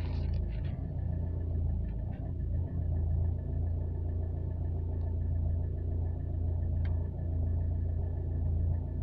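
Renault Clio III dCi diesel engine idling from a cold start, a steady low rumble with a faint, evenly repeating high-pitched tick over it.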